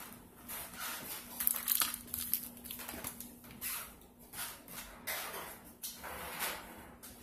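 A foil-covered baking tray being lifted and handled: aluminium foil crinkling and rustling in irregular bursts over a faint steady hum.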